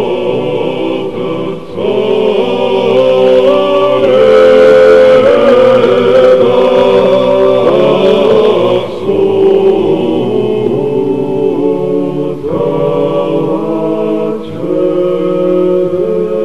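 Orthodox church chant sung by a choir in several voice parts, with long held notes moving together in harmony.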